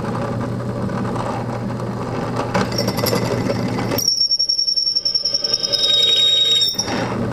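Drill press running with a Black & Decker twist bit cutting into a thick steel tube, then from about four seconds in a loud, steady, high-pitched squeal of the bit in the steel for under three seconds, cutting off suddenly near the end.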